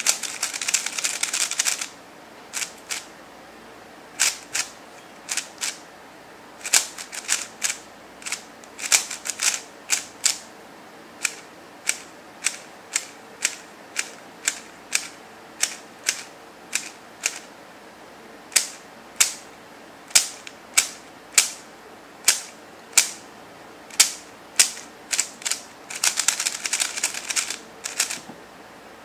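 QiYi Warrior W 3x3 speed cube being turned by hand: its plastic layers click with each turn. There are quick flurries of turns at the start and again near the end, and single turns about once or twice a second in between.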